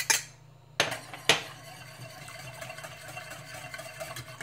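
Two sharp clanks against a metal saucepan about half a second apart, then a wire whisk stirring thin cream sauce in the saucepan: a quick, steady scraping and ticking of the wires against the pan.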